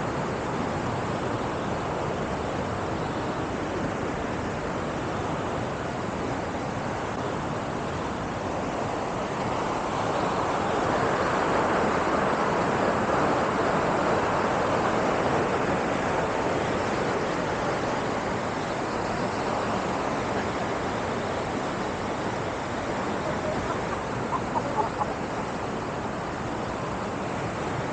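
Steady rushing noise of a waterfall, swelling louder for several seconds in the middle.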